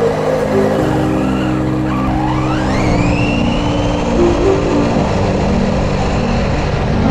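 A battery-powered HBX Destroyer 1/16 RC truck's electric motor whining up in pitch as the truck accelerates, about two seconds in, then holding a high steady whine. Background music with sustained chords plays underneath.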